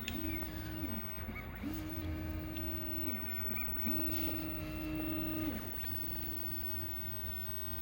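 Stepper motors of a Lowrider V2 CNC whining as the machine drives a drag knife through vinyl upholstery. It makes about four separate moves, each whine rising in pitch as the move speeds up, holding steady, then dropping as it slows to a stop.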